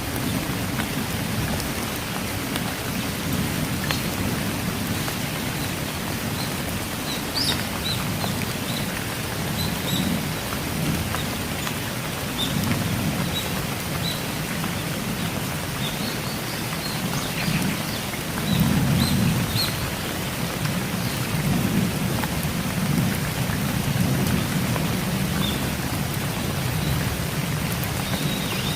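Steady rain falling, with low rumbles of thunder that swell and fade, strongest about two-thirds of the way through. Faint short high chirps come and go over the rain.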